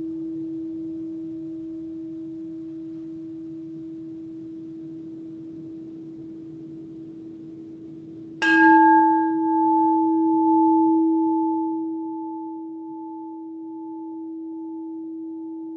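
A singing bowl rings with one low, slowly fading tone, then is struck again about eight seconds in, ringing out with several higher overtones that waver in loudness as they fade.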